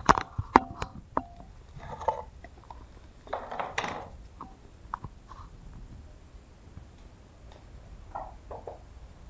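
A small metal keychain with a coin-like medallion clinking several times in the first second or so, some clinks ringing briefly, followed by a few rustles of handling and paper.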